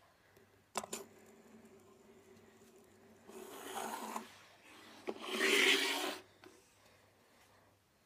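A fidget spinner flicked with a click and whirring steadily on its bearing, then two bursts of a hand rubbing and brushing close by, the second the louder, near the middle.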